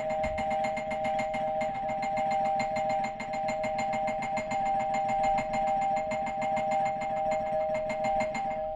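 Electric doorbell ringing nonstop as its button is pressed over and over, a steady two-tone ring with a fast, even pulse.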